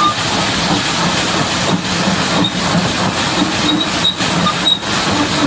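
Loud, steady rushing noise with a low rumble and a few brief high squeals, from a Caterpillar D8R bulldozer being washed.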